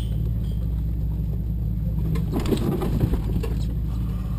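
2007 Jeep Wrangler JK's 3.8-litre V6 engine running low and steady as it crawls over a rocky trail, heard from inside the cab. About two seconds in comes a burst of crunching and rattling as the Jeep goes over rocks.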